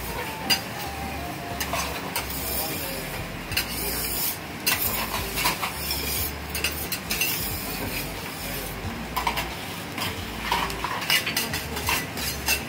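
Metal spatulas clacking and scraping on a steel okonomiyaki griddle, with irregular sharp clinks over a steady sizzle of cabbage and pork frying on the hot plate.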